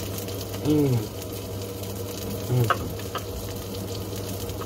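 Gyoza frying in a pan: a steady crackling sizzle over a low steady hum. Twice, about a second in and again past the middle, a short hummed voice sound comes from someone eating.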